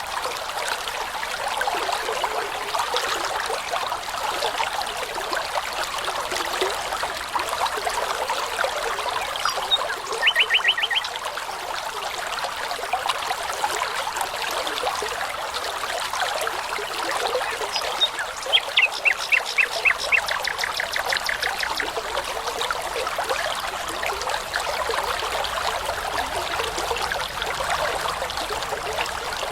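A babbling brook trickling steadily, with a songbird giving two short runs of rapid repeated notes, one about ten seconds in and a longer one around twenty seconds in.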